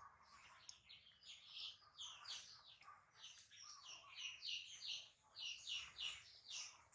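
Faint, rapid high-pitched chirping: short chirps in quick runs, several a second.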